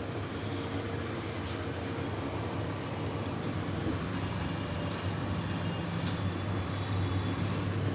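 Steady rumble of road traffic, a low hum under an even noise, with a few faint ticks.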